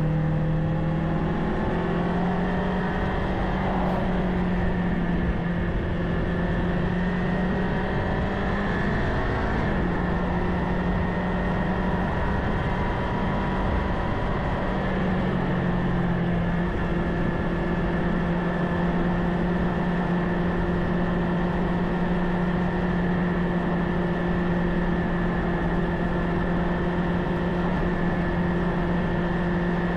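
Kawasaki Ninja 500's parallel-twin engine running on the road, its pitch rising over the first couple of seconds and dipping briefly about ten seconds in, then holding steady at cruise over a constant rush of noise.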